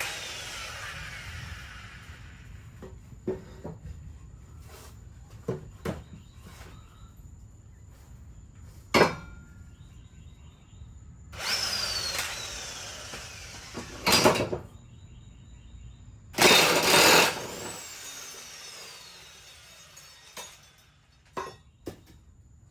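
Power tool run in several short bursts on the mower's blade bolts, its whine falling away as it spins down after some of them. Sharp metal knocks of tools and parts come in between.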